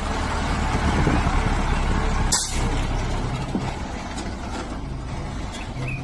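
DAF 45 Series diesel truck running as it pulls away, its engine rumble fading as it moves off. About two and a half seconds in there is a brief hiss, typical of an air brake releasing.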